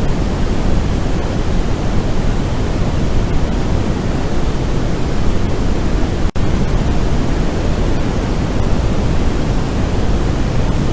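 A steady, loud rushing noise, heaviest in the low end, with no calls or voices in it; it drops out for a split second about six seconds in.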